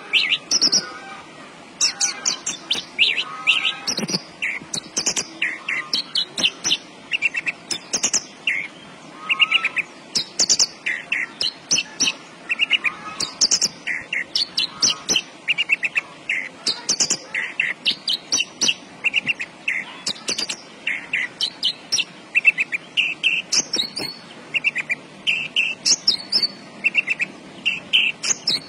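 Australasian bush lark (branjangan) singing continuously: a rapid run of short, high chirping notes and trills, phrase after phrase with only brief pauses.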